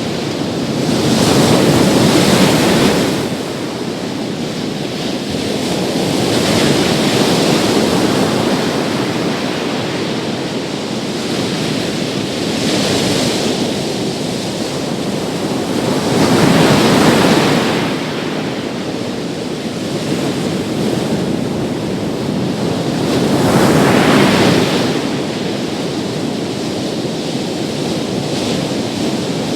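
Big sea waves breaking on a beach, a continuous rush of surf that swells into a louder crash every five to seven seconds and then ebbs.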